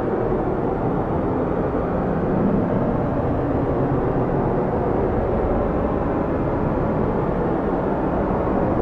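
Strong wind of a snowstorm blowing steadily: a loud, deep rushing noise with no gusts or breaks.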